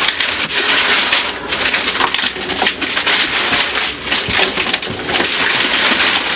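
Plastic grocery bags crinkling and rustling, with small clicks and knocks, as groceries are handled and unpacked.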